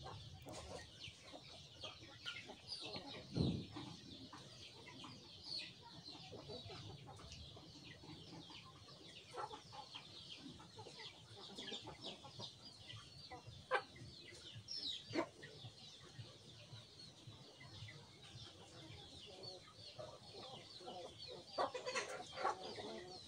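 Faint bird calls in the background, many short chirps, with a few soft knocks.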